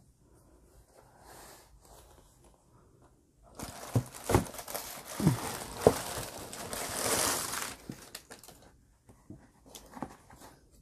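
Tissue paper rustling and crinkling as a leather knee-high boot is handled and pressed down into its shoebox, with a few dull knocks. The rustling starts a little over a third of the way in and lasts about four seconds, and a few light clicks follow near the end.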